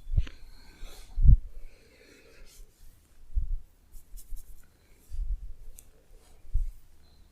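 Hands massaging a body, rubbing and pressing, with faint rubbing and small clicks. About five dull low thumps come at irregular intervals, the loudest a little over a second in.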